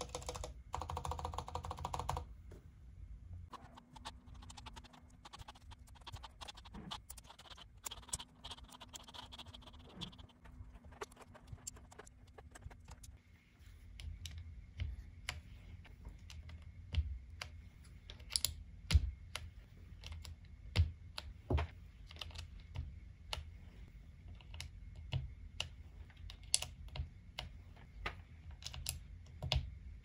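Mechanical keyboard (Womier K87) clacking: stabilized long keys pressed repeatedly for about two seconds in a stabilizer sound test, then scattered sharp clicks and knocks as keycaps are pushed onto the Gateron Brown switch stems, more frequent and louder from about halfway through.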